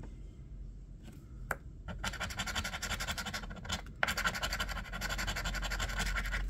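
A coin scraping the silver latex coating off a lottery scratch-off ticket in fast, repeated strokes. It starts about two seconds in and pauses briefly near four seconds.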